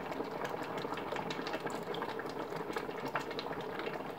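Thick zucchini adjika bubbling in a pot as it boils, a steady run of small irregular pops and blips.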